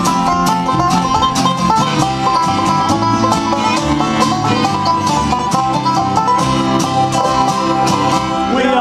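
Bluegrass band playing an instrumental break without a pause: a banjo picking quick rolling notes over strummed acoustic guitar and plucked upright bass.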